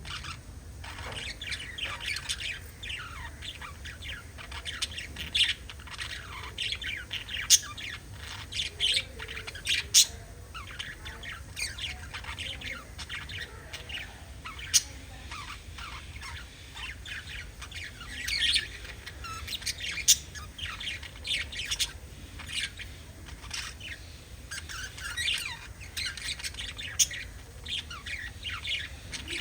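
Several small pet parrots chirping and chattering without pause, a dense flock of quick calls with a few sharp, loud squawks standing out.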